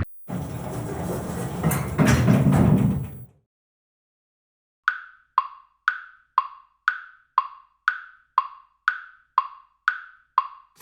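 A rushing, noisy sound effect for about three seconds, then after a short silence an animated Japanese railroad crossing alarm strikes its bell tone twelve times, two per second, each strike short and quickly fading.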